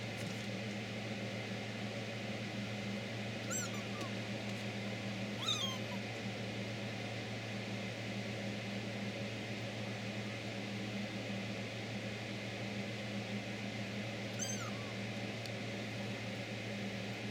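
Kitten mewing: three short, high-pitched mews that fall in pitch, a few seconds in, again about two seconds later, and once more near the end, over a steady low hum.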